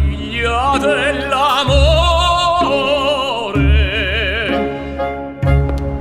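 Music: high operatic singing with a wide vibrato over held accompaniment notes, with a deep bass note coming in about every two seconds.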